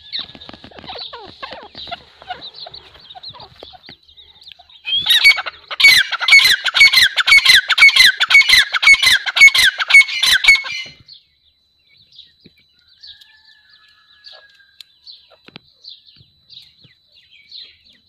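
Grey francolin calling: a loud series of repeated ringing notes, about two a second, starting about five seconds in and stopping after about six seconds, with faint chirps before and after.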